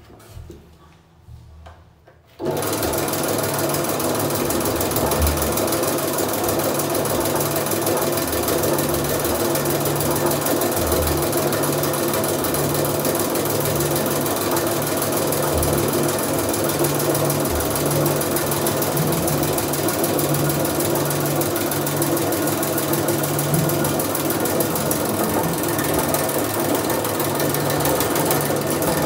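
Motorised drain-cleaning machine running, spinning a spiral spring cable as it is fed down a clogged floor drain: a steady motor hum with a continuous metallic rattle, starting abruptly about two seconds in.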